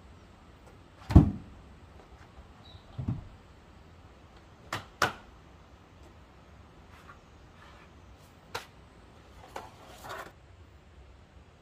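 Scattered knocks and thuds from handling things by hand, with no lathe running. A heavy thump comes about a second in, then a lower thud, two sharp knocks in quick succession near the middle, and a few lighter knocks near the end.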